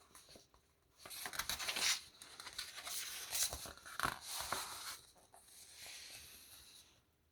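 Paper rustling and crackling as glossy magazine pages are handled and turned, in a few seconds of busy rustle that then dies down to a faint shuffle.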